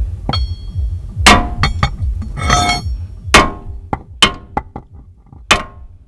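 A hammer striking metal about seven times at uneven intervals: sharp clanks, several with a metallic ring. It is knocking at a seized, stubborn nut on the car's front suspension.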